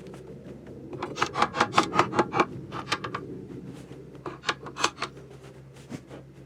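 Quick scraping, rasping strokes, about five a second for a second and a half, then two more and a short run of three, over a steady low hum.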